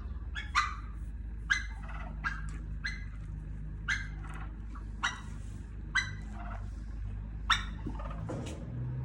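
Turkey hen calling in short, sharp clucks, about nine at irregular spacing.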